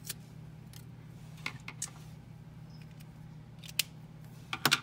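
A few short, sharp clicks from stationery being handled on a desk while planning, the loudest cluster near the end.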